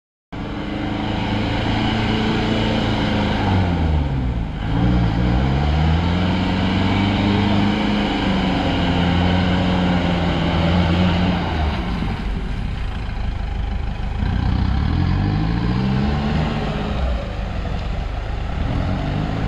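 Off-road 4x4's engine revving hard through mud, its pitch falling about four seconds in and climbing again, then dropping and rising once more near the end.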